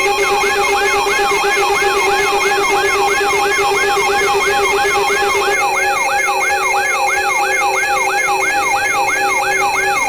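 Synthesized emergency alert tone: a steady chord of electronic tones under a siren-like sweep that falls in pitch and repeats about two and a half times a second. A higher copy of the sweep joins about halfway through.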